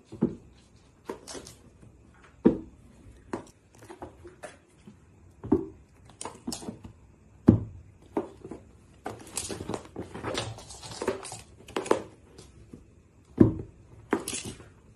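Irregular thumps and scuffles of a cat leaping, landing and pouncing on a rug, with scrabbling and rustling between the landings.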